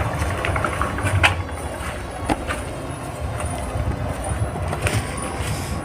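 Footsteps walking through rubble and undergrowth, with a few sharp snaps or knocks about a second in, around two seconds in and near the end, over a steady low rumble.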